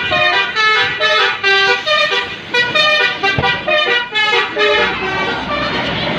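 Indonesian bus 'telolet' musical air horn playing a quick tune, its tones switching pitch about four times a second.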